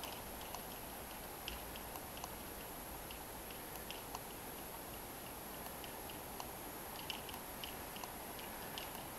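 Electric golf trolley driving itself across grass, its motor giving a faint steady hum, with small irregular ticks and chirps scattered throughout.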